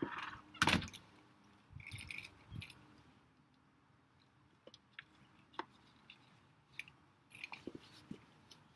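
A front door shutting with a single sharp knock about a second in, then a brief jingle and rustle, a low thump, and scattered light footstep-like clicks on the stone steps.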